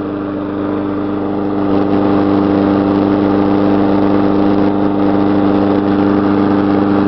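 Lawn mower's small petrol engine running steadily at a constant speed, getting a little louder about two seconds in. It is left running to burn off old gas. The mower vibrates heavily, which the owner suspects comes from the blade.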